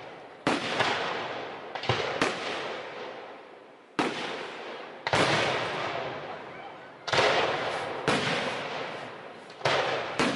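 Aerial firework shells bursting, about nine sharp booms at uneven spacing, each trailing off in a long rolling echo.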